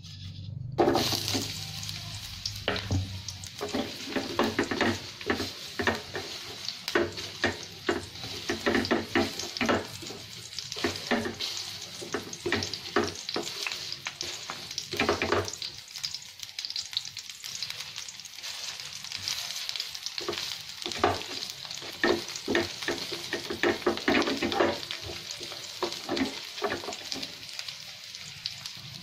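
Sliced onion hits hot oil in a frying pan and starts sizzling about a second in. It then fries with a steady sizzle while a wooden spatula stirs it, making frequent short scrapes and taps against the pan.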